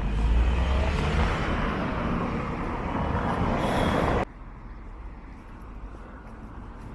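Road traffic: a motor vehicle passing close by with a loud rushing and low rumble that cuts off abruptly about four seconds in, leaving a quieter street background.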